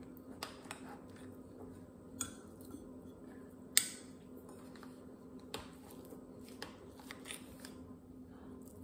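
A spoon scooping soft cream cheese from a glass bowl into a glass measuring cup: scattered light clinks and taps of metal on glass, the sharpest about four seconds in, over a steady low hum.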